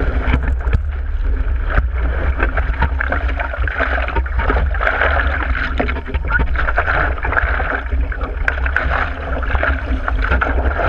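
Seawater rushing and splashing against a surfboard and its nose-mounted GoPro, full of small slaps and spatters over a steady low rumble.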